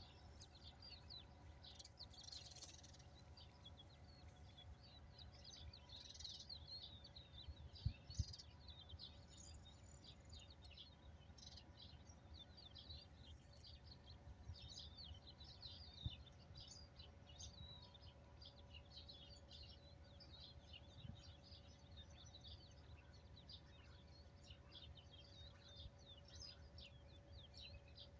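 Faint, dense chirping of many small birds over a low wind rumble, with a faint steady hum. A few soft knocks about eight seconds in and again near sixteen seconds.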